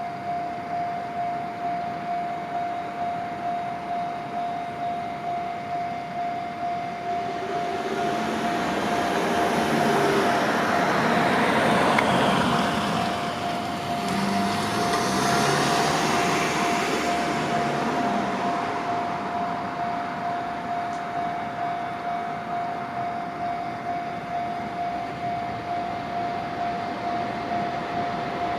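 Japanese railway level-crossing warning bell ringing, a steady electronic tone pulsing in a regular rhythm. A train passes on the crossing, its noise swelling to a peak about twelve seconds in and dying away by about twenty seconds.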